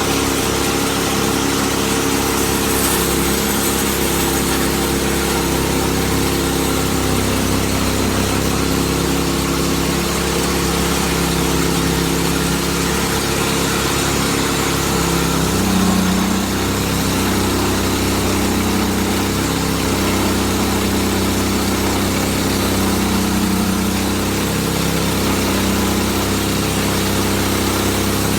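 Portable sawmill's gas engine running steadily as the mill makes its first pass through a large spruce log. About halfway through, the engine note drops and starts to waver as it labours under the heavy cut.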